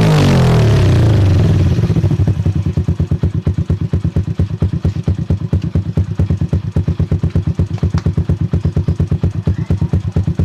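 Kawasaki CT100 single-cylinder motorcycle engine idling steadily through an aftermarket DBS exhaust pipe, an even stream of rapid exhaust pulses. Background music fades out during the first second or two.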